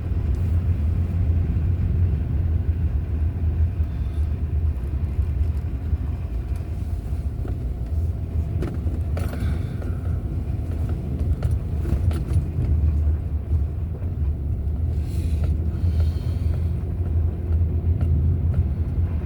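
Pickup truck driving slowly on a snow-covered street, heard from inside the cab: a steady low engine and road rumble, with a few faint clicks and a couple of brief hissing swells.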